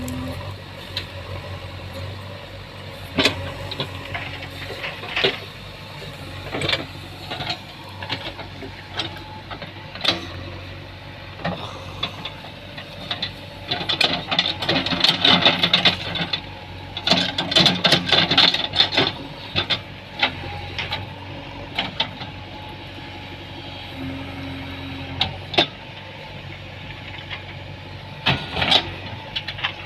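JCB backhoe loader's EcoMAX diesel engine running steadily while the machine works, with many sharp cracks and knocks over it. The cracks come thickest and loudest in two spells about halfway through.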